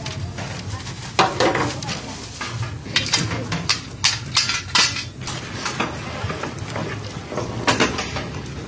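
Metal ladles and steel trays clanking and scraping against large steel cooking pots. One sharp clank comes about a second in, several more come between three and five seconds in, and another comes near the end, over a steady low hum.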